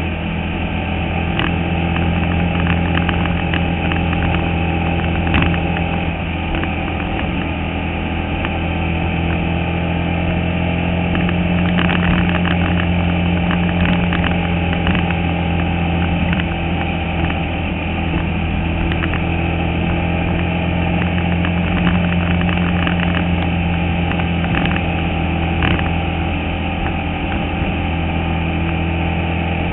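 Bandolero race car's engine running hard at a fairly steady pitch, heard from inside the cockpit, with scattered rattles and knocks from the car.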